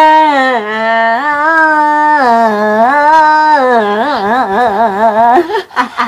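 A woman's long, drawn-out, singsong mock wail, one voice held like a sung note: the pitch steps down about half a second in, holds, then wavers up and down near the end before breaking off into laughter.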